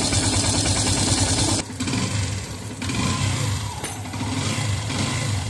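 Yamaha FZS v3 single-cylinder engine running at idle after a timing chain replacement, steady throughout; the sound drops suddenly in level about one and a half seconds in and carries on quieter.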